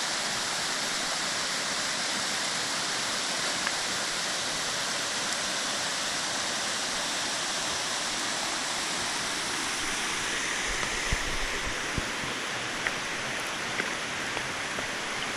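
Waterfall rushing: a steady, even roar of falling water. A few soft knocks come in the last few seconds.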